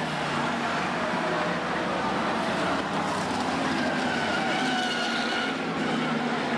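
Several F1 stock cars' V8 engines running together at racing speed as the cars lap the oval: a steady, continuous engine sound with several pitches at once.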